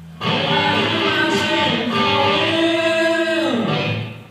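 Live rock band music led by electric guitar: loud sustained notes come in suddenly, slide down in pitch and break off shortly before the end.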